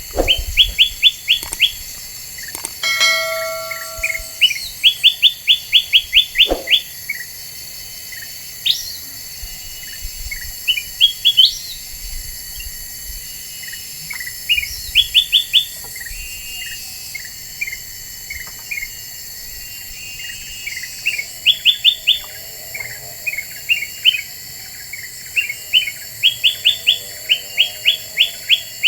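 Kutilang emas bulbul singing a lure song: bursts of quick, sharp chirps, each a rapid run of eight to ten notes, repeated with short pauses between, together with scattered single calls.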